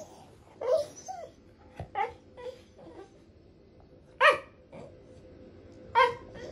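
Corgi vocalizing in a string of short, high-pitched calls, about six in all, the loudest about four seconds in.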